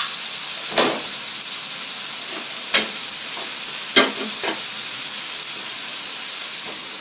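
Sliced chayote, carrot and tomato frying in a little shrimp broth in a non-stick wok: a steady sizzling hiss. Three short knocks come about one, three and four seconds in.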